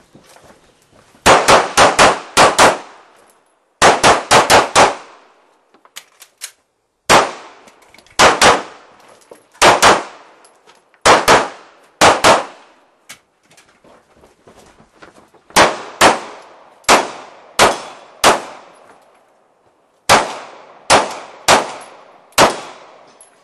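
Handgun fired in rapid strings. There are two fast volleys of about five shots each in the first five seconds, then mostly quick pairs of shots: double-taps on targets during a practical shooting course of fire. Each shot has a short ringing tail.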